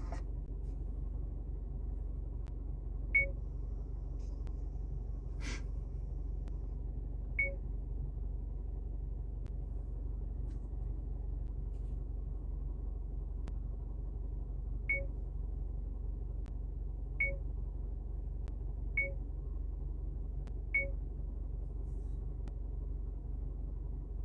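Six short, high electronic beeps at irregular intervals over a steady low hum, with a single click about five seconds in.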